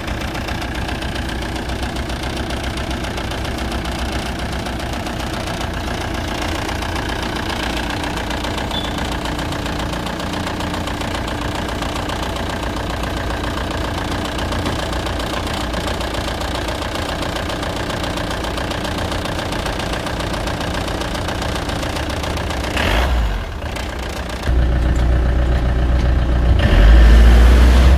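Force Traveller van's diesel engine running steadily at idle, just after a cold start. Near the end the engine gets much louder and deeper as it is put under load to try to drive the van off.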